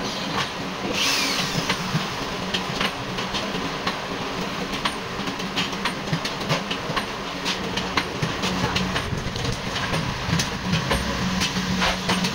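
Body-shop work noise: frequent metal clicks and clanks from chains and tools over a steady low hum, with a brief falling swish about a second in.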